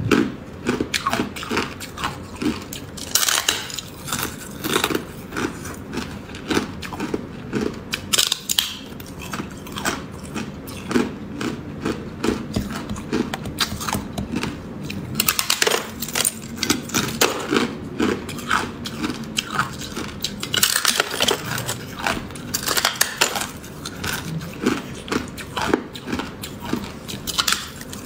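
A person biting and chewing hard, clear ice close to the microphone: a dense run of sharp cracks and crunches with short pauses between bites.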